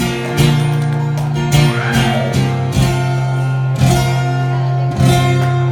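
Live band playing an instrumental passage: guitars over a held low bass note, with a hit about once a second and gliding bent guitar notes.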